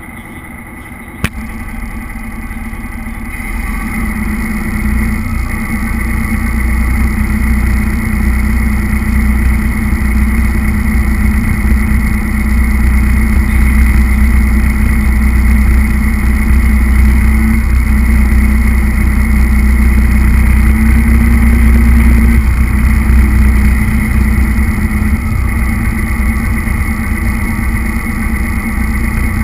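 Radio-controlled model truck's motor and drivetrain running, a steady whine over a heavy low rumble, heard from a camera mounted on the truck itself. A single click about a second in, then the sound builds over the first few seconds and holds steady.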